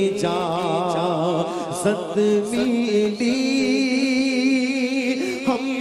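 A man singing a naat, an Urdu devotional poem in praise of the Prophet, into a microphone. He holds long notes with a wavering, ornamented pitch.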